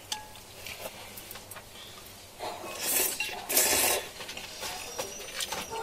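Eating sounds: scattered light clicks of a utensil against a food container, with two short, louder noisy bursts about halfway through.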